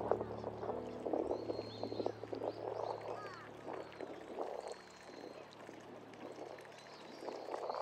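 A flock of ducks calling on a pond: a dense chorus of short, croaking, clucking calls, with a few higher whistles, over a steady low hum.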